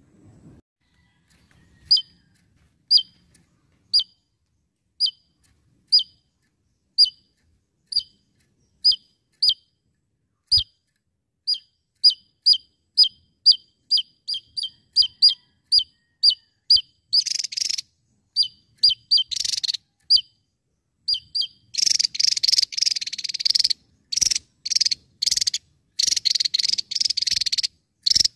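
Javan tesia singing: short, sharp falling notes, about one a second at first, quickening to about two a second, then breaking into harsh buzzy bursts that come thick and fast near the end.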